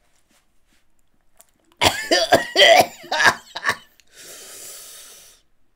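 A man coughing in a quick fit of five or so loud coughs about two seconds in, then letting out a long hissing breath through bared teeth: a reaction to the burn of flaming-hot chips.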